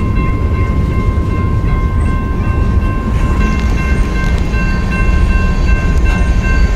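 A train rolling by with a heavy, steady low rumble and several steady high ringing tones over it, and a few faint clicks in the second half.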